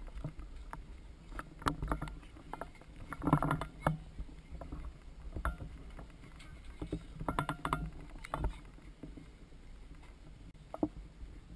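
Irregular muffled knocks, thumps and scuffling of Pembroke Welsh corgi puppies running and wrestling on grass right around a ground-level camera, heard through a waterproof camera housing. The busiest stretch comes a few seconds in, with another flurry past the middle.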